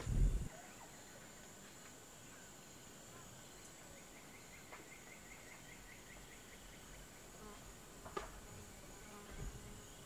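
Rainforest ambience: a steady high-pitched insect drone, with a low thump at the very start, a short run of rapid chirps (about five a second) in the middle, and a single sharp click about eight seconds in.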